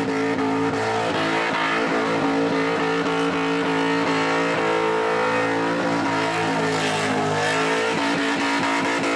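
Holden Commodore V8 held at high revs in a burnout, the rear tyres spinning and smoking; a steady, loud engine note with tyre noise, its pitch shifting slightly near the end.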